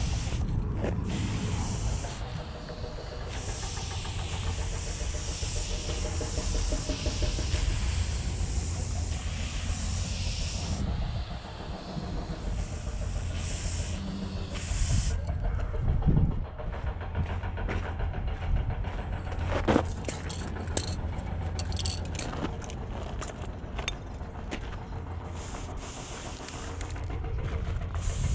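Aerosol spray paint hissing out through a four-needle skinny cap adapter in long stop-start bursts for about the first half, then the hiss mostly drops away and scattered clicks and knocks follow, one sharp knock near the middle. A steady low rumble runs underneath.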